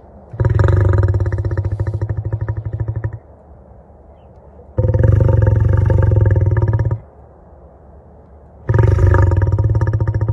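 Tractor engine being cranked over on its starter three times, a fast even chugging each time, without catching: the engine won't start.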